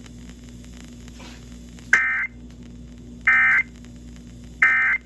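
Emergency Alert System end-of-message data signal: three short, high-pitched digital data bursts about a second and a half apart, marking the end of the alert. Steady radio hum and static lie between them.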